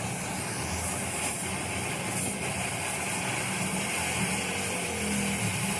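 A machine running steadily with a strong hiss over a low hum, starting and cutting off abruptly.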